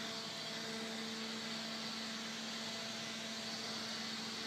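Steady mechanical hum: a constant low tone with a few fainter higher tones above it and a light hiss, unchanging throughout.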